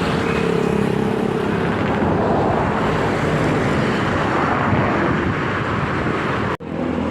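Tour bus diesel engine running steadily at close range, with a brief sudden gap in the sound near the end.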